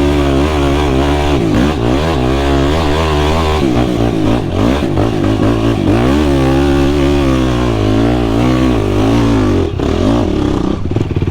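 Sport quad's engine revving under hard, changing throttle, its pitch rising and falling over and over, with a brief drop near the end.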